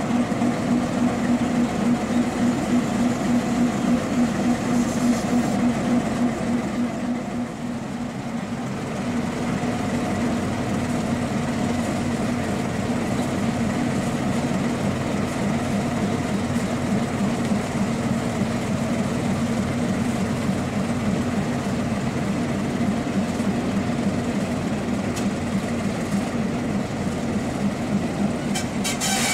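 MaK 450C diesel shunting locomotive's engine running at low revs with a steady, even throb.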